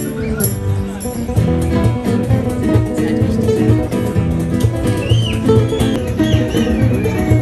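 A busker's acoustic guitar played live, plucked notes and chords in a steady rhythm.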